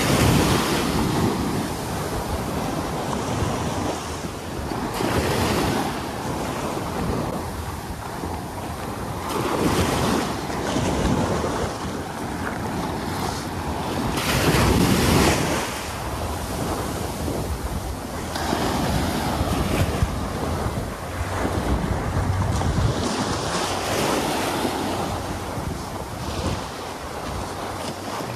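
Waves breaking on a beach, the surf swelling and falling back about every five seconds, with wind rumbling on the microphone.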